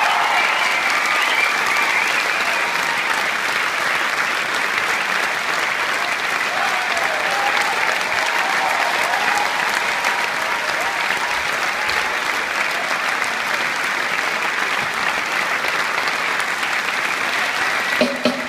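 Large theatre audience applauding steadily, a dense unbroken clapping. Music with a bass beat starts just at the very end.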